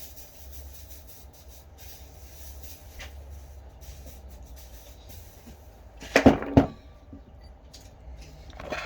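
Two sharp knocks a moment apart, over a faint low rumble.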